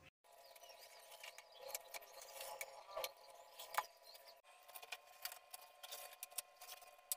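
Knife slicing through a baked sponge cake in a metal baking tray: faint scratching and a string of small ticks as the blade scrapes and taps on the tray.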